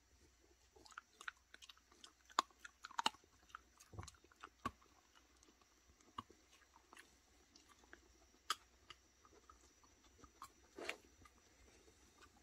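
Dogs chewing dried Korean beef liver jerky: irregular crunches and clicks of teeth, thickest in the first few seconds, then scattered single crunches.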